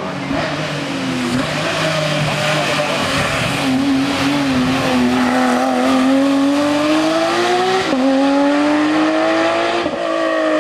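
Hill-climb race car engine under hard acceleration. Its pitch climbs steadily, then drops sharply at quick upshifts about eight and ten seconds in.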